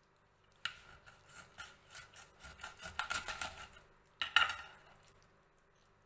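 Kitchen knife cutting a raw quail in half on a wooden cutting board: a run of quick crunching, scraping strokes through the small bird's bones that grows louder, then a sharp knock of metal on the board about four seconds in.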